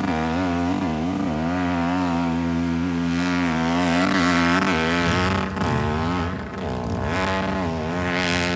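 Four-stroke hillclimb motorcycle engine revving hard as it climbs a steep dirt hill. The pitch holds fairly steady at first, then dips and rises repeatedly over the second half as the throttle is worked.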